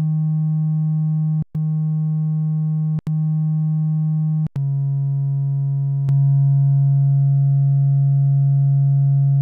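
Behringer 2600 Blue Marvin analog synthesizer oscillator playing a smooth, nearly pure tone with faint overtones. It plays three short notes, then a slightly lower note held for about six seconds, which gets louder a little after halfway.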